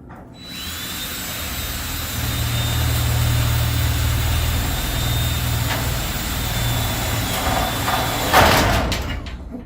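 A motor runs steadily for about eight seconds with a low hum, ending in a sharp loud clunk just before it dies away.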